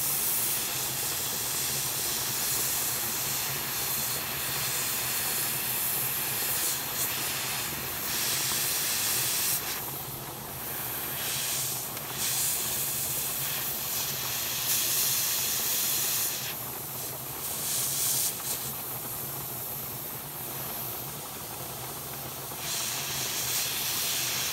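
Steady hiss of steam jetting from a travel kettle's steam attachment onto a skein of handspun wool, steam-setting the yarn to relax the excess twist left from spinning. The hiss thins out several times in the middle and later part as the skein is turned in the jet.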